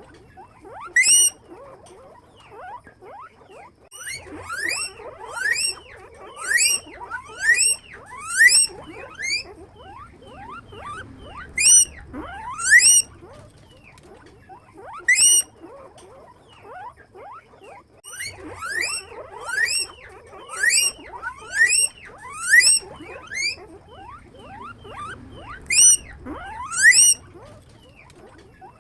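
Guinea pig wheeking: loud, high squeaks that rise sharply in pitch, repeated in runs of several calls about a second apart, with short pauses between the runs.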